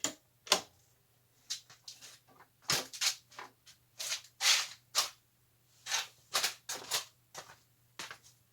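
A run of sharp knocks and clacks, one or two a second at uneven spacing, over a faint steady low hum.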